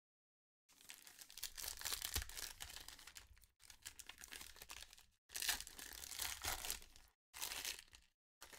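Foil wrapper of a Panini XR football card pack being torn open and crinkled by hand. It comes in several bursts of crinkling with short pauses between them, starting just under a second in.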